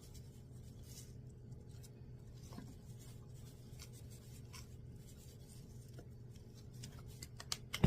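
Seasoning being shaken and rubbed onto raw lamb by hand: faint scratchy rubbing and light taps over a low steady hum, with one sharper click near the end.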